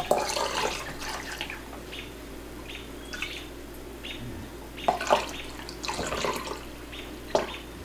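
Hot liquid lard being scooped from a cast-iron pot with a metal measuring cup and poured through a plastic canning funnel into a glass mason jar: liquid pouring and trickling, with short metallic clinks and scrapes of the cup against the pot.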